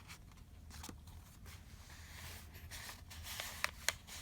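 Soft rustling of paper as the pages and a tag of a handmade junk journal are handled, with two short clicks near the end.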